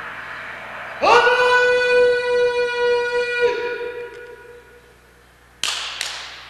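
Live music: a fading hiss gives way, about a second in, to a single loud note held at a steady pitch for about two and a half seconds, rich in overtones, which then dies away. Near the end come two short hissing hits close together.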